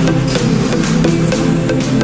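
Background music with a steady drum beat under sustained pitched notes.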